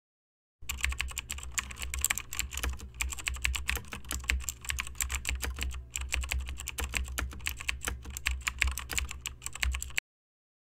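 Typing on a computer keyboard: rapid runs of key clicks with short breaks, over a steady low hum. It starts about half a second in and cuts off suddenly near the end.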